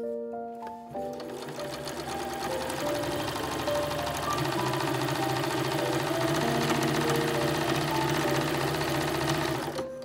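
Singer electronic sewing machine stitching a fabric strip, running steadily from about a second in and stopping just before the end.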